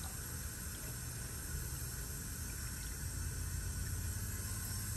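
Water trickling steadily: cold-sterilization solution draining off a lifted tray back into its plastic tub, with a sink faucet left running a little.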